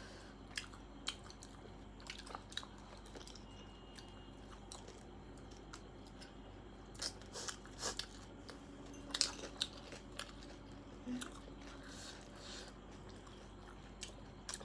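A person chewing and biting food close to the microphone, with scattered short mouth clicks and crunches, more of them in the middle of the stretch.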